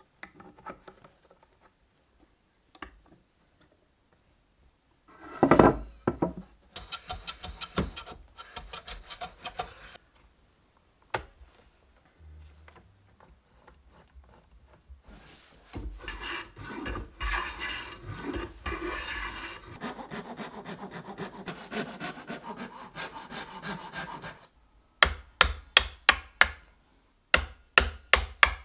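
Hand-tool work on wood and metal parts: scattered knocks and clicks of parts being fitted, a long stretch of steady rubbing on wood in the middle, then a quick run of sharp chisel cuts into the edge of a wooden board near the end, about four a second.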